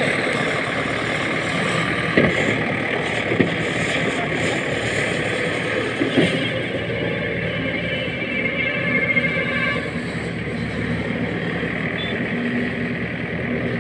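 Tractor diesel engine running steadily under load while it drags a trench-backfilling attachment that pushes the dug soil back into the trench, with a few short knocks.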